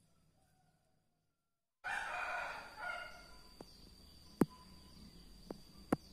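Near silence for the first couple of seconds, then an abrupt, loud animal call lasting about a second and a half, followed by four sharp clicks spread over the rest, the loudest about four and a half seconds in.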